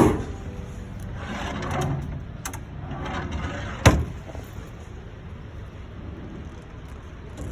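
A few clicks and knocks over a steady background hum, with one sharp bang about four seconds in.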